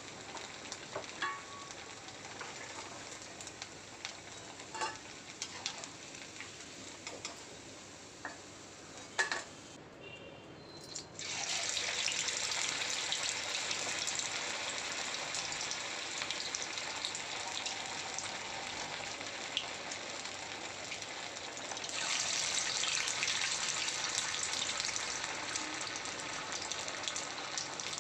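Sabudana vadas deep-frying in hot oil in a kadai, a steady sizzle with a few clicks of a slotted steel spoon. About eleven seconds in, after a brief dip, the sizzle jumps loud as a fresh vada of batter goes into the oil, and it grows louder again about twenty-two seconds in as a second one is added.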